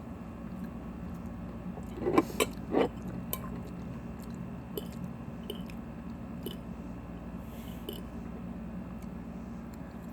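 Chewing a mouthful of crunchy raw kale chopped salad (kale, cabbage, broccoli, Brussels sprouts, pepitas), with a few sharp clicks or crunches about two seconds in and small ticks after. A low steady hum runs underneath.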